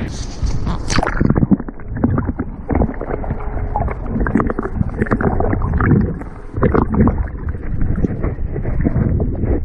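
Water splashing and sloshing irregularly against a pedal kayak, with wind buffeting the microphone. Muffled after the first second or so.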